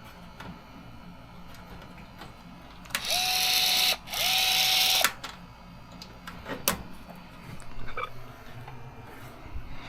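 A power tool pulling a blind rivet: two motor runs of about a second each, each with a steady whine and hiss, then a sharp click.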